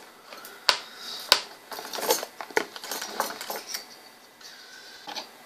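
Sharp clicks and clatter of small hard objects being handled: two loud clicks about half a second apart near the start, then a quick run of smaller knocks and rattles that thins out.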